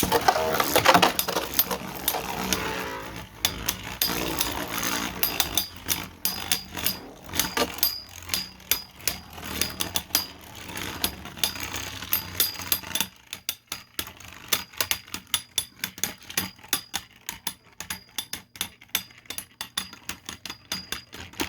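Beyblade battle in a plastic stadium, one top a 3D-printed Beyblade: a burst of launch noise at the start, then a rapid run of clicks and clacks as the spinning tops strike each other. The clicks grow sparser about halfway through.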